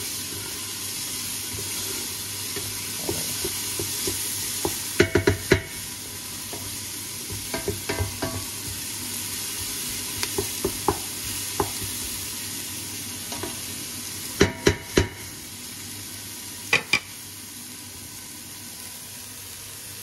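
Chopped onion, celery and garlic sizzling in hot oil in a large pot, a steady frying hiss. Now and then a utensil stirring the vegetables knocks against the pot in short clusters of sharp clacks.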